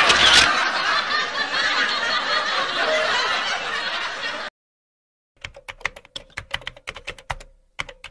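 A dense, noisy wash of sound that cuts off abruptly about four and a half seconds in. After a second of silence comes a quick, irregular run of sharp clicks, a keyboard-typing sound effect, over a faint steady hum.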